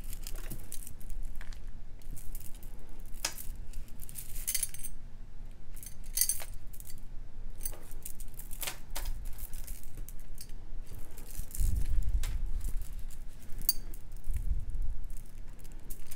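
Loose beads clicking and clinking as they are picked through and set down: scattered light clicks with a few brighter, briefly ringing clinks. A couple of dull thuds come in the last few seconds as things are handled on the work surface.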